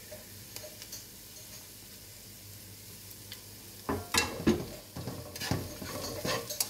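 Onions frying in oil with a faint, steady sizzle. About four seconds in, a wooden spatula starts stirring and tossing them with chopped coriander in a non-stick pot, giving loud, irregular scrapes and knocks against the pan.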